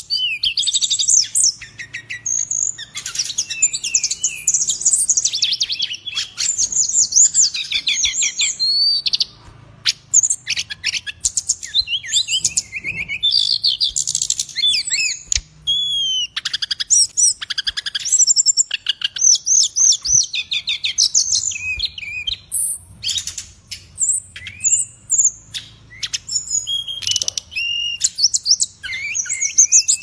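A caged brown-chested jungle flycatcher (sikatan rimba dada coklat) singing almost without pause: a rapid, varied run of high whistled phrases and trills, broken by a few short gaps.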